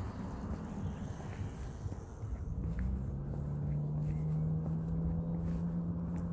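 Footsteps on a concrete sidewalk over a low outdoor rumble, with a steady low hum coming in about halfway through.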